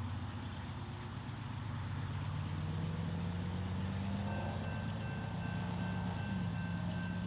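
Diesel locomotive engine running with a deep rumble, its pitch rising as it throttles up from about two seconds in. A faint steady high whine joins about four seconds in.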